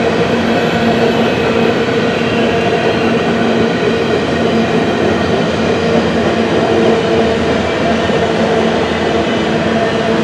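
Canadian Pacific freight train of empty grain hopper cars rolling by: a steady, even rumble of wheels on rail with a constant hum of tones under it.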